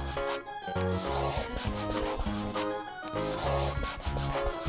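A scratchy coloring sound effect, like a crayon scribbling over paper, plays over background music with a steady bass line.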